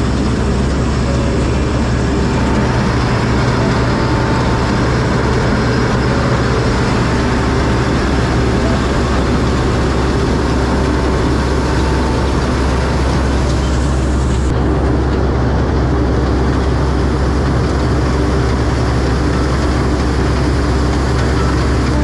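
Rice combine harvester running steadily: a loud, even engine drone with the reel and cutting gear working through the crop. The sound turns duller about two-thirds of the way in.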